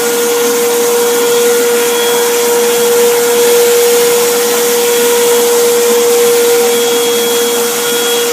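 Wet vacuum running steadily to suck up floodwater, with a constant motor whine over its rushing air noise.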